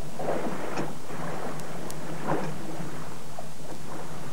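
Scuba divers in twin-tank gear dropping into the sea one after another: three short splashes over a steady low hum.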